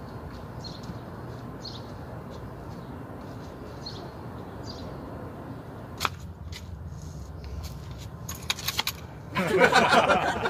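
Faint high squeaks repeating about every half second over a steady low hum, then a few sharp clicks, and near the end loud rustling and clattering as the phone is handled right at the microphone.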